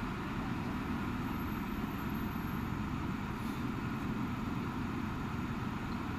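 Bus engine running, heard from inside the bus as a steady low noise with no distinct events.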